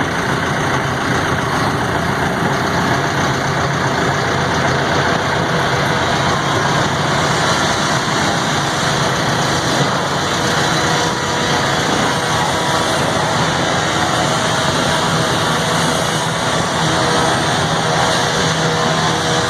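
Heavy engine of construction machinery running steadily at a low, even speed.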